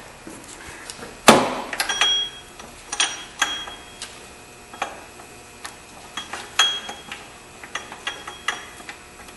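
Irregular metallic clicks and clinks of a ratchet and socket working the 12 mm bolts that hold a Honda Accord's belt tensioner, with a sharp clank about a second in. Some strikes ring briefly, and later there are short runs of quicker clicks.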